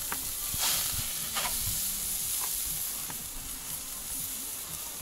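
Skewered liver and fat-tail fat (kurdyuk) sizzling over hot embers: a steady hiss with a few scattered crackles.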